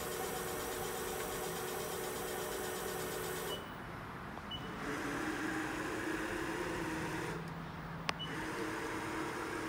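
Southwestern Trak DPM CNC mill's axis drive whining steadily as the table traverses under power, the pitch stepping to a new steady tone several times as moves start and stop, with a brief lull about three and a half seconds in. A single sharp click about eight seconds in.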